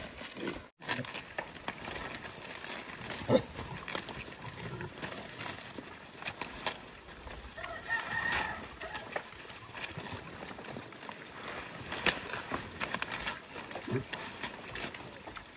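Young pigs feeding on a pile of fresh leaves, rustling and crunching with many small clicks and a sharp knock a few seconds in. A rooster crows once about eight seconds in.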